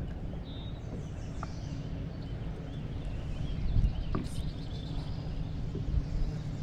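Open-water ambience on a fishing boat: a steady low rumble of wind on the microphone, with faint birds chirping in the background and a couple of light knocks a little past halfway.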